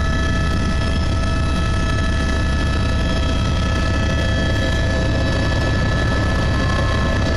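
Helicopter in flight heard from inside its cabin: a loud, steady deep rumble of rotor and engine, with several steady high whining tones over it.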